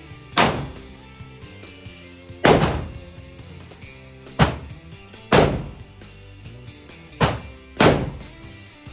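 Six shots from a Glock 48 9 mm pistol, fired one at a time at uneven intervals, over background music.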